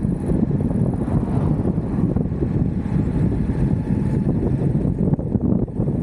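Wind buffeting the microphone over the low, steady rumble of an Exway Atlas Pro 4WD electric skateboard rolling along the road.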